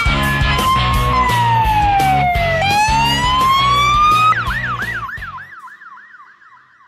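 Emergency-vehicle siren wailing in long rising and falling sweeps over background music with a steady beat; a little over four seconds in the siren switches to a fast yelp of about three sweeps a second. The music stops soon after and the yelp fades out.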